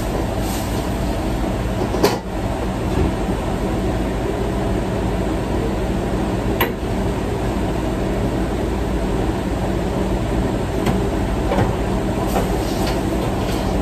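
Steady roar of a commercial wok range's gas burner and exhaust hood running, with a few sharp clanks of a metal ladle against the wok, the clearest about two seconds in and again past the middle.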